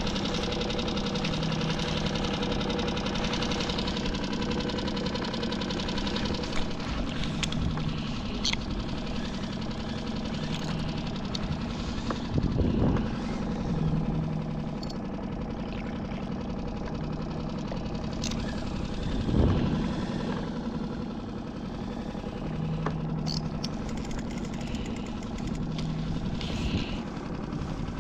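Small outboard motor on a solo skiff running steadily in gear at low trolling speed. Two brief louder bumps come partway through.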